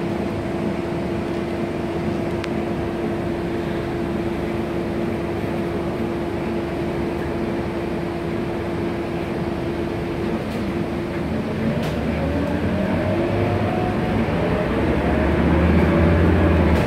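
City bus heard from inside, its engine idling with a steady hum while the bus stands. About ten seconds in it pulls away, and the engine note rises and grows louder as it accelerates.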